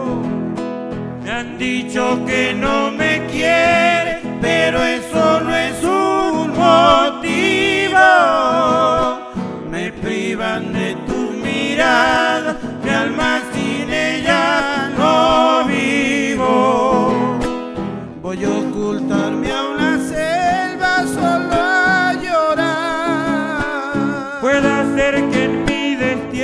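A vocalist singing held notes with vibrato over strummed acoustic guitars, a live folk-style song performance.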